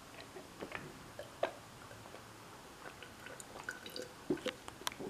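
Faint gulping and swallowing of a person drinking water from a plastic cup: scattered small irregular clicks from the mouth and throat.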